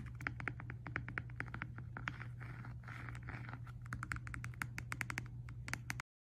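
Quick irregular clicks and taps with scratchy rustles in between, like packaging being handled during an unboxing, over a low steady hum; the sound cuts off abruptly near the end.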